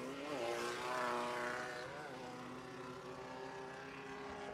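Car-cross race buggy engine revving, its pitch rising over the first second or so and then holding at a steady drone.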